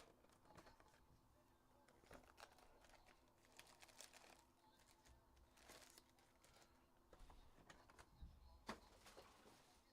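Faint crinkling and rustling of foil trading-card pack wrappers and cards being handled, with scattered small clicks and one sharper click near the end.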